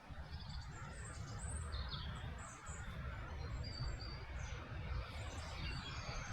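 Several small birds chirping and twittering in short, scattered calls, over a steady low rumble.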